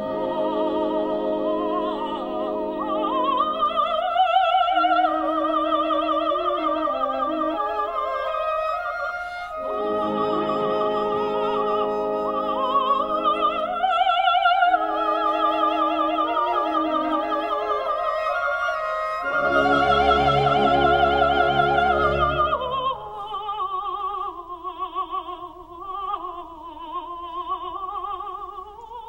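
Female classical singer singing a Korean art song with orchestra accompaniment, holding long notes with wide vibrato on an 'ee' vowel over sustained strings and horns. The voice eases into a softer, lower phrase near the end.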